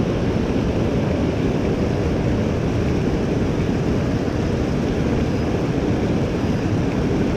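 Steady low rumbling noise of wind buffeting the microphone.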